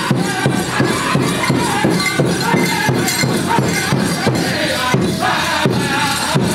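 Powwow drum group playing for the dancers: a fast, steady beat on a big drum, with several voices singing a high, chant-like song over it.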